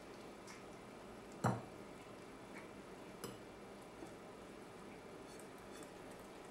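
Siamese cat eating from a ceramic plate, with small clicks of teeth and tongue against the dish. A sharp clink on the plate comes about one and a half seconds in, and a lighter one shortly before the halfway point.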